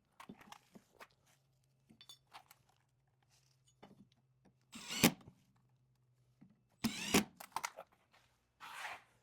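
Power drill driving screws through metal brackets into pallet wood, in short bursts of motor whine, the loudest about 5 seconds in, with scattered knocks and clatter of the brackets and screws between them.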